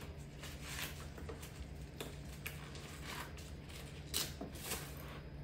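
Faint rustling and handling noises: a few soft crinkles and taps as hands work at a woven plastic basket and the plastic inside it, over a low steady hum.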